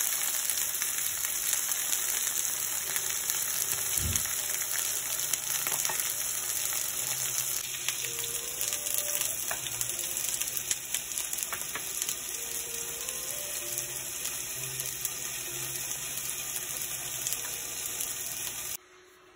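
Oil sizzling in a frying pan under plant-based kebabs and sliced mini bell peppers: a steady hiss with fine crackling, and a single low thump about four seconds in. The sizzle cuts off suddenly near the end.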